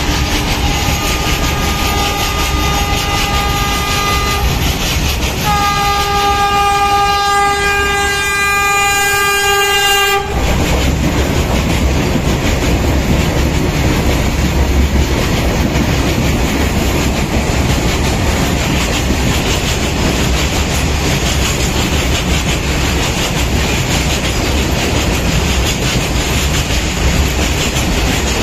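Train horn sounds in two long, multi-note blasts, the second louder, over the noise of a freight train's open wagons rolling past close by. The horn cuts off abruptly about ten seconds in. After that the steady wheel clatter of the freight train and of the Vande Bharat Express passing on the next track carries on.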